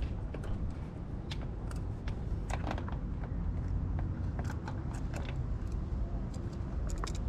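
Scattered light clicks and rustles from parts and paper being handled, over a steady low rumble.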